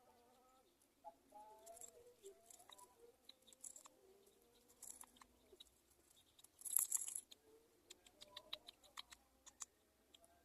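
Faint animal calls, thin and wavering, with many scattered small clicks and rustles close by and a short hiss about seven seconds in.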